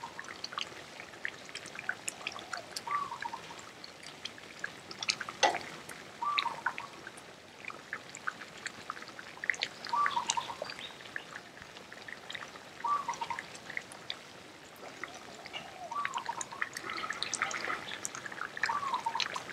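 Thick massaman curry simmering in a pan, with small bubbles popping and crackling as a wooden spatula stirs it, and one louder knock about five seconds in.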